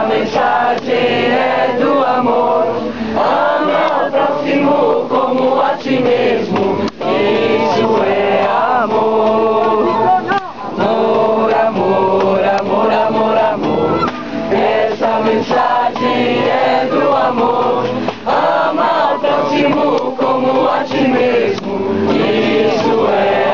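A group of voices singing a chant together, a ceremonial song.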